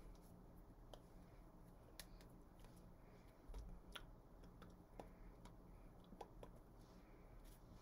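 Near silence: room tone with a low steady hum and faint, scattered clicks and taps.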